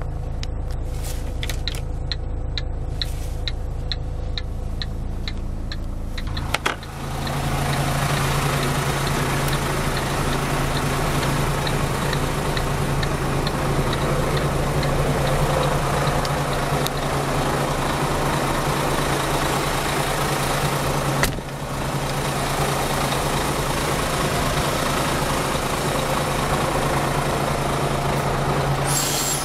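A 2008 Iveco Stralis 500's 13-litre six-cylinder diesel idles while the hazard-light relay ticks steadily. About six seconds in, the engine sound turns suddenly louder and fuller, and it stays that way, with a brief drop about twenty seconds in.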